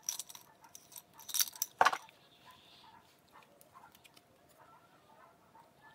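Makeup brushes rattling and clinking in a glass mason jar as one is pulled out, for about two seconds. After that there is only low room sound with a few faint high chirps.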